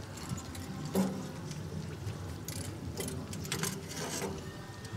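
Metal grill tongs clinking against the steel grate of a barbecue smoker while turning sausages: a few short, sharp clicks spread through the stretch.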